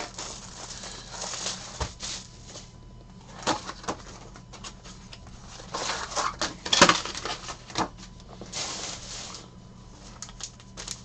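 A cardboard trading-card box being opened by hand and its foil-wrapped packs lifted out: rustling and crinkling of cardboard and foil, with many short sharp crackles and snaps, the loudest a little past the middle.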